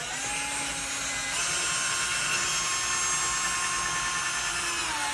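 Cordless drill driving a screw with a steady motor whine. It picks up speed about a second and a half in and slows near the end.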